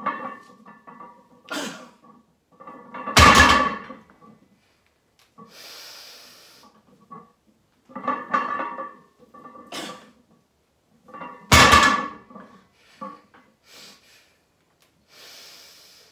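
Deadlift barbell loaded to 405 lb set down on the floor between reps: two heavy thuds of the plates, about eight seconds apart. Between the thuds come hissing breaths.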